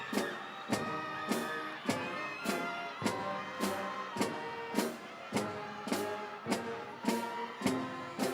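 Instrumental music with a steady beat, a little under two beats a second.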